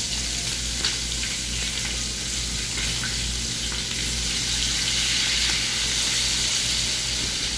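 Seasoned chicken drumsticks deep-frying in hot oil in a pan: a steady sizzle with a few small pops.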